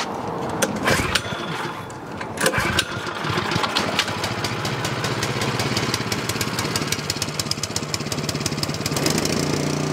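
Ariens snow blower's LCT small engine cranking over a few times, catching, and running with rapid, even firing pulses, then settling into a steady run near the end. It is on choke just after starting, with its carburetor jet freshly drilled out to cure surging.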